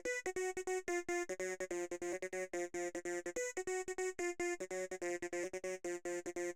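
Electronic psytrance synth line of rapid, short staccato notes, several a second, sent through a formant filter in FabFilter Volcano 2, which gives the notes a vowel-like, vocal quality that shifts from note to note.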